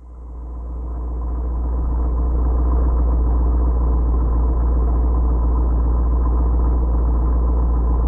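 Low, steady rumble of a 2016 Chevrolet SS with a six-speed manual, heard inside the cabin, rising over the first couple of seconds and then holding. It comes from one of the owner's recordings of a bouncing-thumping drivetrain noise.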